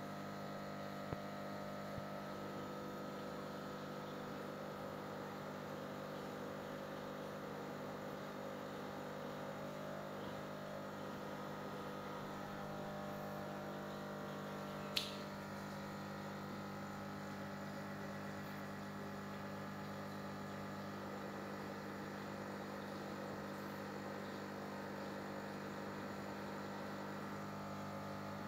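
Steady electrical hum from running aquarium equipment, with one sharp click about halfway through.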